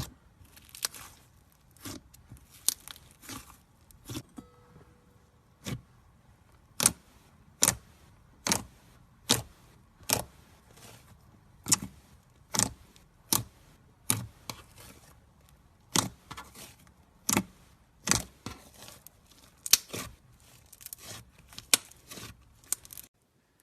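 Boba slime being pressed and squeezed by hand, making sharp pops and clicks about once a second in a steady rhythm.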